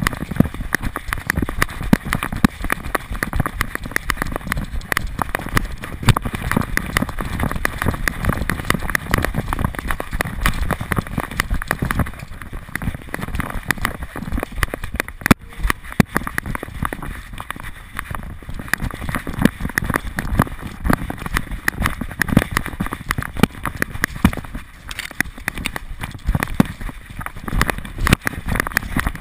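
A dog running with a GoPro HD Hero2 camera strapped to its back. The camera picks up a rapid, unbroken clatter of knocks and rubbing as each stride jolts it.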